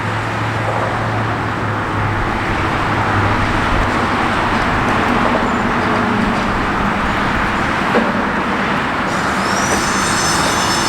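Steady motor-vehicle noise: an engine running amid road traffic, with a low hum that fades out about four seconds in.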